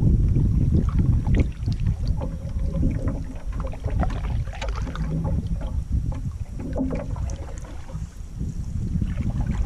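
A canoe being paddled through water, with scattered small splashes and drips from the paddle strokes. A steady low wind rumble on the microphone sits beneath them.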